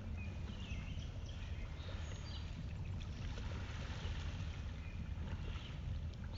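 Riverside outdoor ambience: a steady low rumble of wind on the microphone, with short bird chirps now and then.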